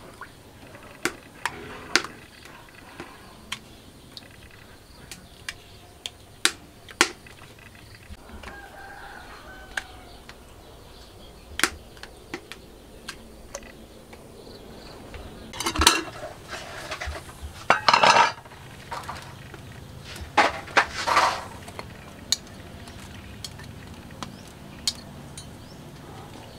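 Hands preparing purple vegetable stems: a scatter of sharp clicks and snaps as the stems are peeled and broken into pieces. Past the middle come three louder bursts of handling and splashing as pieces go into a basin of water.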